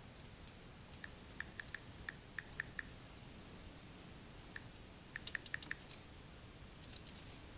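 Faint, quick taps on calculator keys entering a sum: a run of about eight presses, a pause, then about six more.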